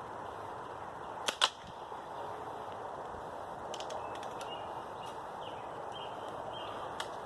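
A BB gun firing: two sharp snaps a split second apart about a second and a half in, likely the shot and the BB striking its target. Fainter clicks follow a couple of seconds later and again near the end, over a steady outdoor background hiss.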